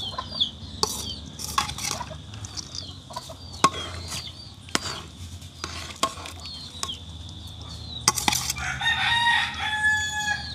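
A rooster crows once near the end. Before it come short chirps and a few sharp clinks, like a spoon knocking against a cooking pot.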